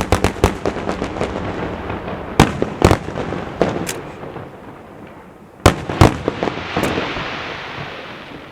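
Fireworks exploding: a loud bang, then a rapid string of cracks, followed by several more loud bangs with crackling between them, dying away near the end.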